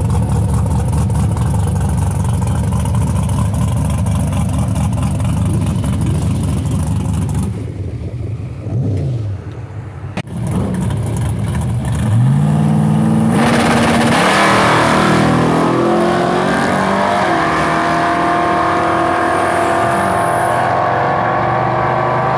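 Chevrolet S-10 drag truck's engine running loudly and steadily, then, about twelve seconds in, revving hard as the truck launches down the drag strip, its pitch climbing as it pulls away on a first shakedown pass.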